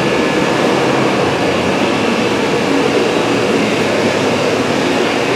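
Vehicle lift's motor running steadily as it raises a pickup truck, a loud, even whirring hiss.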